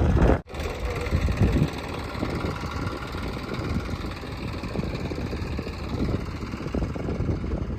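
Diesel engine of heavy earthmoving machinery running steadily. The sound drops out sharply about half a second in and comes back a little quieter.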